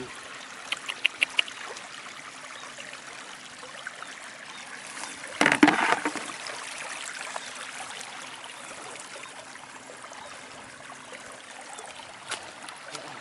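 Shallow water flowing and trickling steadily. A quick run of four sharp clicks comes about a second in, and a brief louder burst of noise about five and a half seconds in.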